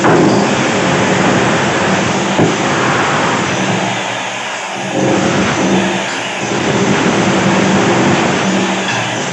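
Handheld electric power tool running loudly and continuously under load while old bathroom wall tiles are being broken out, its motor pitch fading in and out several times.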